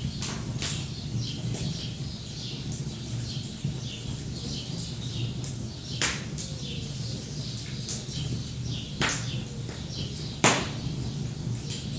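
Wood fire crackling with a steady low rumble and sharp pops, the loudest about ten and a half seconds in, others near six and nine seconds. Small birds chirp throughout.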